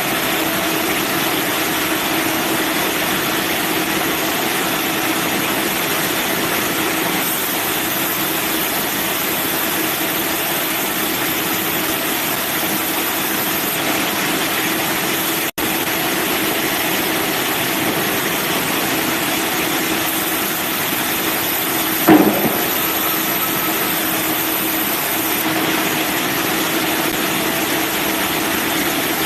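Manual bandsaw sawmill running steadily, its engine holding an even pitch. A single knock about two-thirds of the way through.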